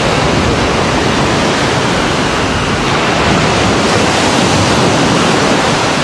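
Surf washing onto a sandy beach: a steady, loud rush of waves.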